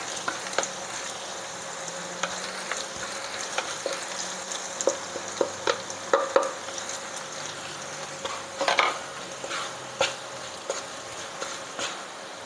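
A wooden spatula scrapes and taps around a nonstick wok, stirring chili powder and turmeric into shallots, garlic and ginger frying in hot oil. The irregular scrapes sit over a steady sizzle.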